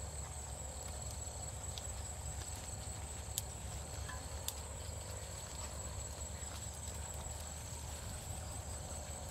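Outdoor ambience: a steady, high-pitched insect drone over a low rumble, with a few faint ticks.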